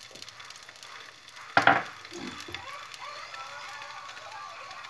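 A thick slice of salami frying in oil in a nonstick pan, sizzling faintly, with one sudden loud crackle about a second and a half in.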